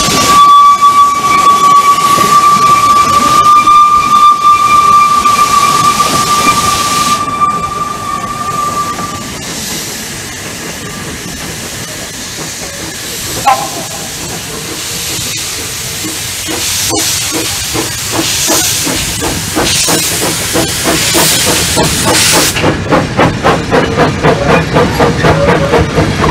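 A steam locomotive's whistle held on one steady tone, stopping about nine seconds in, with a short toot a few seconds later. Then a narrow-gauge saddle-tank steam locomotive approaches under steam, its exhaust beats coming in an even rhythm that grows louder toward the end.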